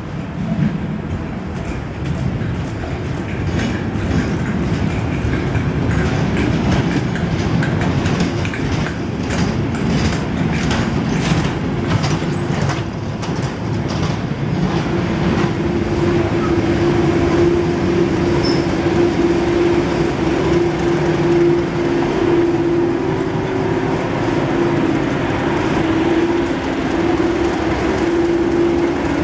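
Network Rail test train rolling into a station: coaches pass with their wheels clicking over rail joints, then from about halfway a steady drone builds as the Class 31 diesel locomotive, with its English Electric engine, draws level.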